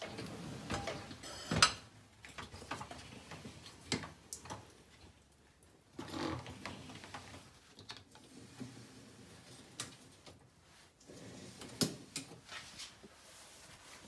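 Loaded wire racks of a Miele dishwasher being moved on their rails: scattered clicks, rattles and knocks of metal racks and dishes, the sharpest knock about one and a half seconds in and another near the end.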